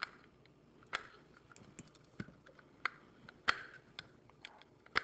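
Irregular clicks, knocks and rustling from a battery-powered microphone being handled close up as its dying battery is changed, loudest about three and a half seconds in and again at the end.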